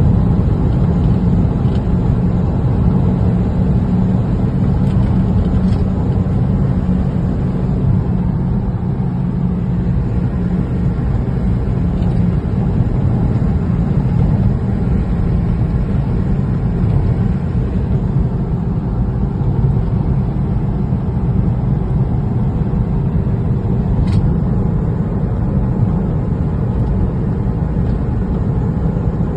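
Steady low road and engine noise of a car cruising on a highway, heard from inside the cabin.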